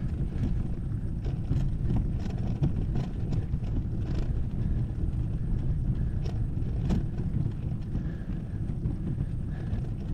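Bicycle rolling over a rough dirt trail: a steady low rumble of tyre and wind noise, with frequent irregular clicks and rattles as the bike jolts over the bumps.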